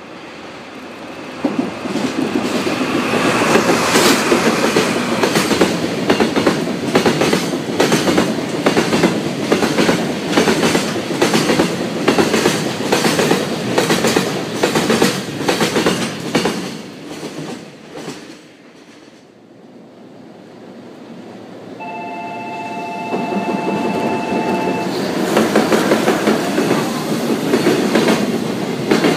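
Freight train of tank wagons hauled by a DD51 diesel locomotive passing close by, its wheels clattering rhythmically over the rail joints until it fades away about 18 s in. About 22 s in, a locomotive horn sounds one chord of two notes for about three seconds. A second freight train of container wagons then rolls past, clattering near the end.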